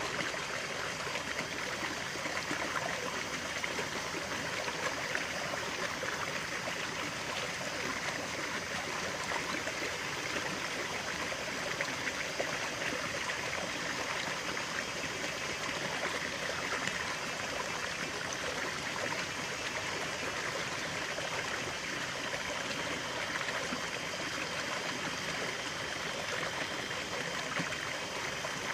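A stream of running water, flowing and trickling steadily.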